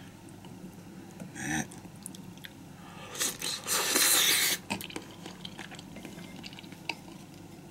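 A person eating hot pot close to the microphone: chewing sounds, with a louder noisy burst lasting about a second and a half, three seconds in.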